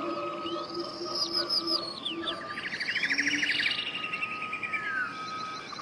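Several songbirds singing and chirping, with quick rising and falling whistled notes and a rapid trill about two seconds in, over a faint steady hum.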